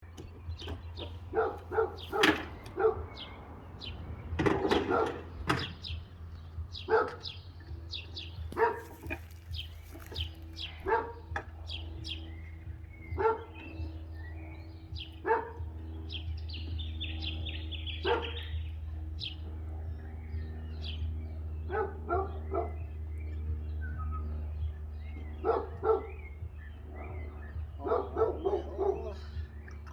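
A dog barking repeatedly in short, sharp barks, over a steady low hum.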